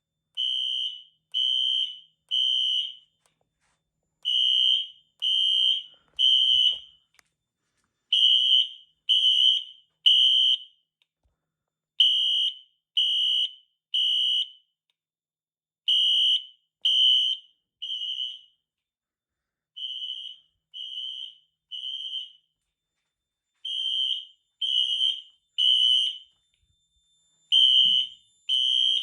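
Fire alarm system in full alarm, its horns sounding the temporal-three evacuation pattern: three high-pitched beeps, a pause, then again, about seven times over.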